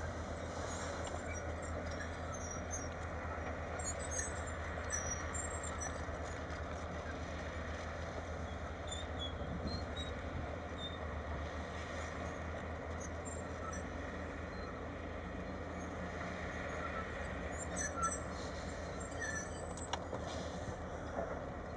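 Caterpillar 325 LN long-reach excavator's diesel engine running with a steady low drone as the machine works its boom. There is a single brief knock about eighteen seconds in.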